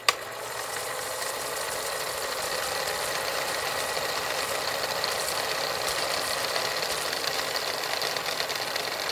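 Old film projector running: a sharp click as it starts, then a steady, fast mechanical clatter.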